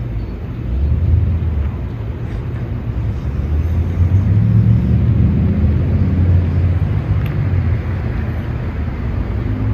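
Steady low rumble, a little louder around the middle.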